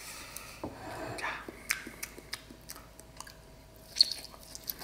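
Close-miked mouth sounds of biting into and chewing a piece of pan-fried, soy-marinated beef short rib, with small wet clicks throughout and one sharper click about four seconds in.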